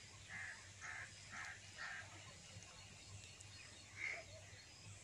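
A bird calling faintly, four short calls about half a second apart, then one more call about four seconds in.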